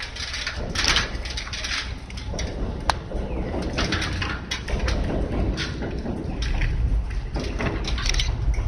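Aluminium stepladders knocking and rattling as they are folded and carried off, with one sharp click about three seconds in, over a constant low rumble.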